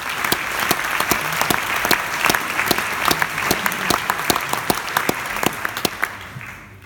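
Audience applauding: dense clapping that thins and fades out near the end.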